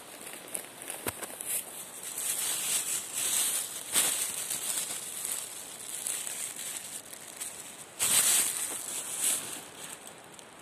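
Rustling and crackling of a person walking over a dry pine-needle forest floor, in irregular bursts, with a brief low bump about a second in and the loudest rustles around four and eight seconds in.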